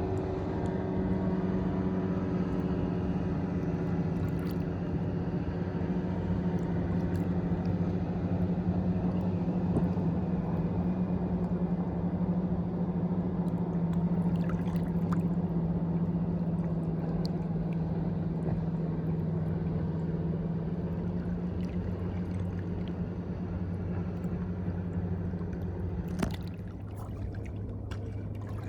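A steady engine drone with a low hum, its pitch sinking slightly, over a noisy watery background. It stops abruptly near the end, leaving quieter water sounds.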